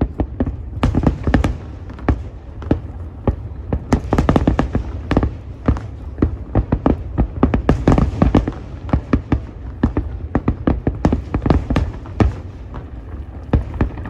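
Fireworks display: a dense, irregular barrage of shell bursts and sharp bangs, several a second, over a continuous low rumble.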